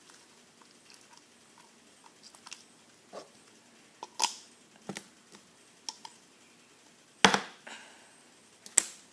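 Hands handling slime and a bowl on a table: scattered short clicks and light taps, with two louder knocks, one about seven seconds in and one near the end.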